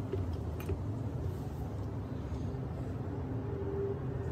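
Steady low rumble of background noise, with a faint click a little under a second in.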